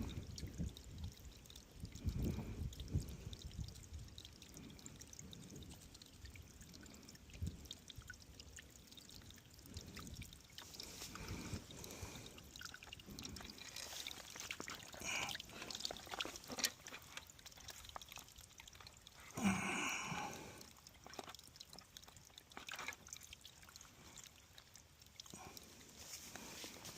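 Faint trickle and pour of spring water being caught in a container for filtering, with a brief, louder unidentified sound about two-thirds of the way through.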